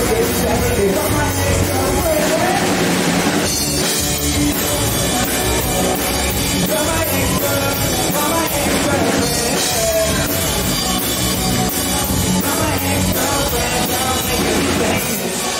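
Live rock band playing loudly: electric guitars and drums, with a male singer singing into a handheld microphone.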